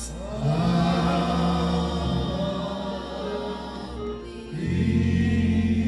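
Gospel choir singing with music, holding two long chords, the second coming in about four and a half seconds in.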